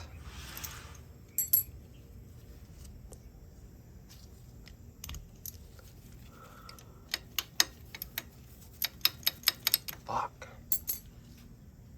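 Hand tools clinking and clicking on metal as bolts on the motorcycle are worked loose: two sharp clicks near the start, then from about seven seconds in a run of irregular metallic clicks, two or three a second.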